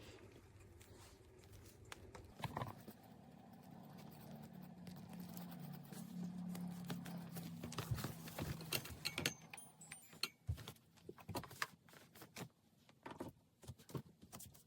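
Scattered clicks and knocks of handling noise while the dryer's power cord is plugged in. A low steady hum runs for several seconds in the first half.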